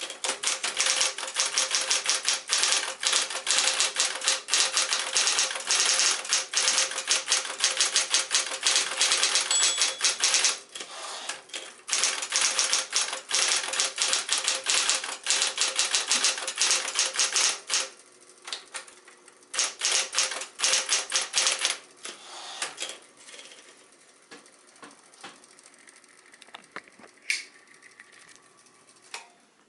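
Smith-Corona Coronet Electric typewriter being typed on: rapid, dense keystrokes over the steady hum of its electric motor, with a brief pause about ten seconds in. In the last third the typing dwindles to a short burst and then occasional single clicks.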